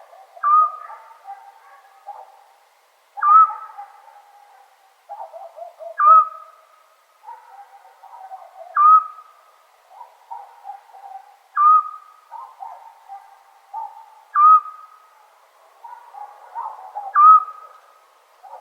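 Eurasian scops owl giving its single short whistled note, repeated seven times at an even pace of about one every three seconds. Fainter, lower-pitched sounds fill the gaps between the notes.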